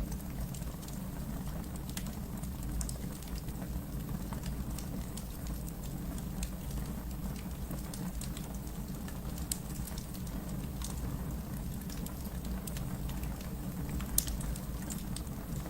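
Wood fire burning in a fireplace: a steady low rumble with scattered crackles and small pops, and one sharper pop near the end.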